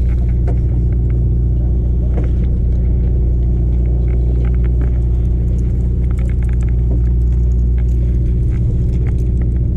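A boat's engine running steadily, a deep, even drone, with faint scattered clicks on top.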